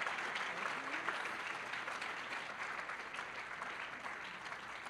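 A large audience applauding, a dense patter of many hands clapping that slowly dies down toward the end.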